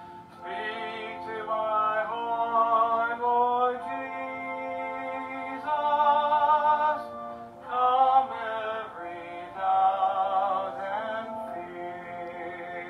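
A worship song sung with vibrato over sustained chords on a two-manual electronic church organ, played back through laptop speakers.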